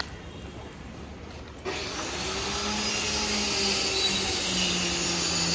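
A motor-driven machine starts suddenly about a second and a half in and runs on loudly, with a steady low hum under a hiss.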